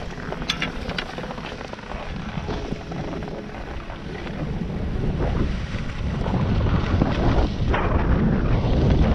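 Wind rushing over an action camera's microphone, building steadily louder as a skier picks up speed downhill, with skis sliding over snow. A few sharp clicks come in the first second.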